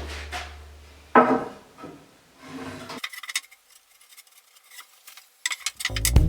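A sharp knock about a second in, then a few light clinks of hard objects, a short near-silent stretch, and background music coming back in near the end.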